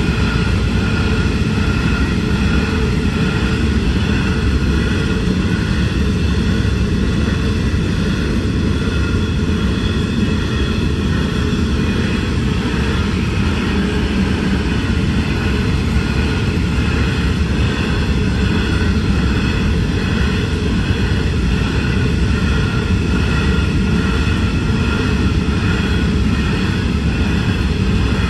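Steady, unchanging heavy vehicle rumble with a constant high whine above it, holding at an even level throughout.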